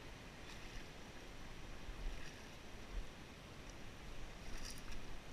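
Steady rush of river water running over rock, with a few faint clicks and low bumps on the microphone.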